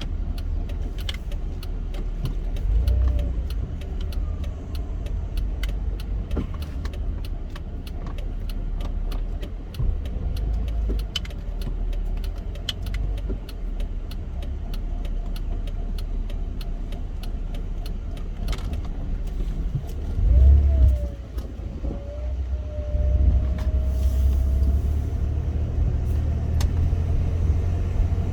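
Car driving along, a steady low rumble of engine and road, with many small light ticks and rattles through the first part.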